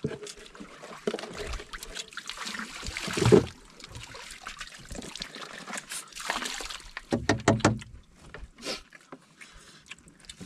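Water poured from a plastic bottle, trickling and splashing in two main spells, the first the longer and louder.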